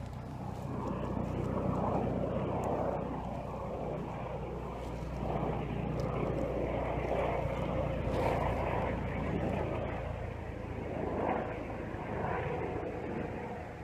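Repeated breathy puffs, swelling and fading about once a second, of someone blowing on a bow-drill ember in a bundle of frayed juniper bark. Under them runs a steady low engine drone.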